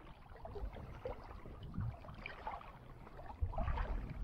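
Quiet sounds of a kayak sitting on shallow river water: faint splashing and small ticks and knocks, with a few low thumps about three and a half seconds in.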